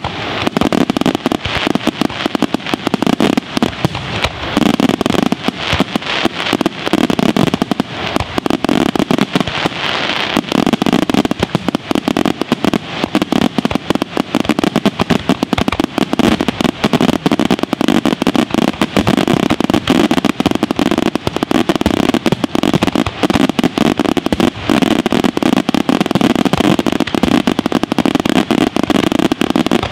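Aerial fireworks display: shells bursting overhead in a dense, continuous barrage of bangs, many reports a second, overlapping without a break.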